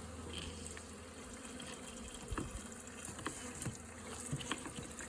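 Honeybees buzzing around an open hive, a steady low hum, with a few faint clicks scattered through it.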